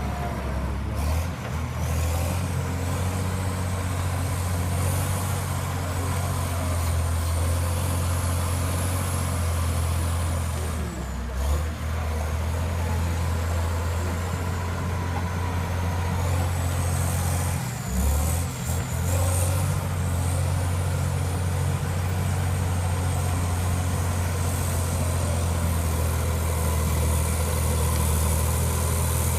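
Caterpillar D7 crawler dozer working, its diesel engine running steadily under load with a deep drone that dips briefly twice. A thin, high squeal wavers in pitch over it.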